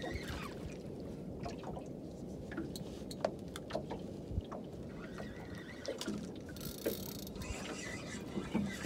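Small fishing boat at sea: a steady low rumble of wind and water against the hull, with scattered light clicks and knocks and a brief hiss about seven seconds in.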